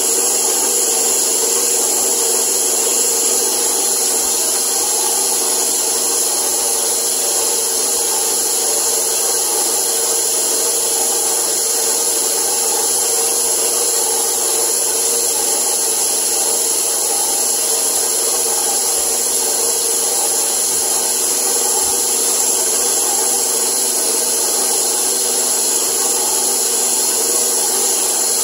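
Electric tilt-head stand mixer running steadily, its dough hook kneading a sticky, still-loose bread dough in a steel bowl. The motor's even hum and hiss holds unchanged throughout.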